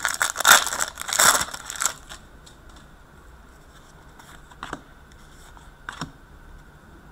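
Foil hockey card pack wrapper crinkling and tearing for about two seconds as a pack is opened, then the cards being handled, with two soft taps near the middle and end.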